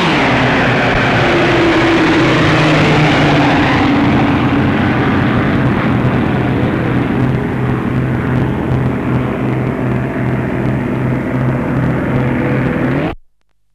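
Twin Bristol Mercury radial engines of a low-flying Bristol Blenheim bomber, loud and steady. The engine note drops in pitch in the first few seconds as it passes overhead, then holds as a drone. The sound cuts off abruptly near the end.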